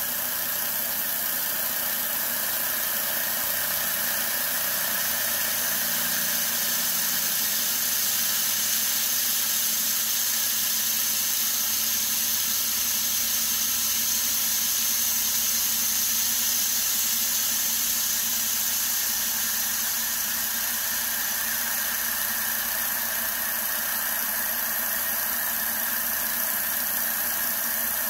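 CNC milling machine's spindle driving an end mill through aluminium, a steady cutting whine with the hiss of a mist-coolant spray.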